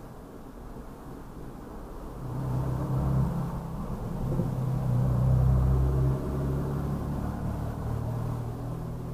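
A low engine rumble with a steady low hum, swelling about two seconds in and loudest around the middle, then easing slightly.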